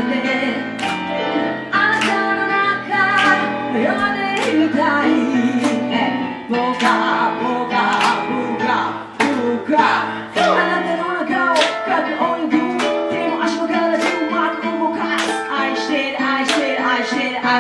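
A woman singing live into a handheld microphone over instrumental accompaniment with a steady beat.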